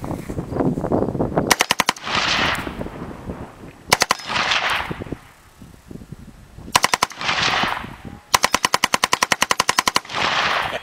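AR-15 rifle firing on full auto in four bursts: a short burst, a very short two- or three-round burst, another short burst, then a long burst of about twenty rounds at roughly a dozen shots a second. An echo rolls back after each burst.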